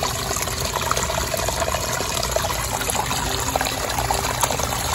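Backyard pond waterfall, pump-fed water splashing and trickling steadily into the pond.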